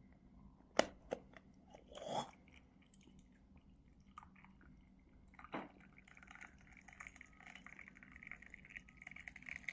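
Faint handling of a glass of herbal tea: two sharp clicks about a second in, a short scrape, a dull knock past halfway, then a faint crackling rustle.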